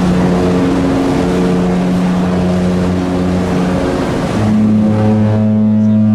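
Cruise ship typhon horns sounding in long, steady blasts as a horn concert on departure: one deep horn holds until about four seconds in, then a different, slightly higher horn takes over. A rushing noise lies under the first horn and drops away near the end.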